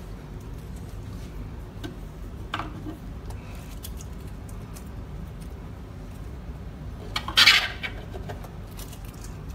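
Small metal shelf pins clicking into the holes of a white cabinet side panel as they are pushed in by hand, with a louder metallic clatter about seven seconds in.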